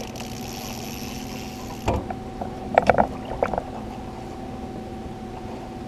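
A small boat motor running steadily with a constant hum. About two seconds in there is a thump, followed by a quick run of knocks and clatters as gear is handled on the boat while the landing net is taken up for a fish.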